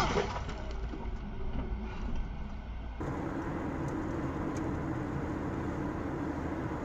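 Road noise inside a moving car, picked up by a dashcam. First comes a low rumble with a few faint clicks as the last debris from a collision settles. About three seconds in, it switches abruptly to an even, steady hum of tyres and engine at highway speed.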